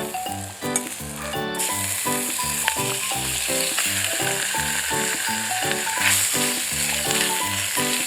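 Food sizzling as it fries in a pan, starting about one and a half seconds in and cutting off suddenly at the end, over background music with a steady beat.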